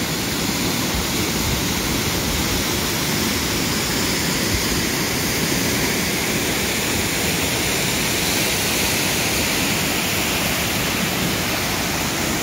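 Steady rush of a 64-foot waterfall plunging into its pool, together with the stream cascading over boulders below it.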